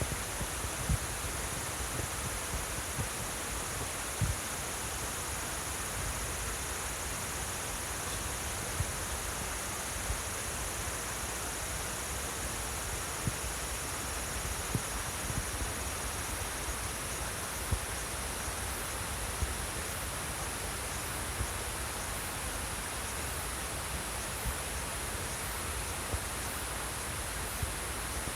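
Flowing water with insects chirping: one insect trills steadily at a high pitch throughout, and from about halfway another calls in regular pulses about once a second. Soft low knocks come now and then.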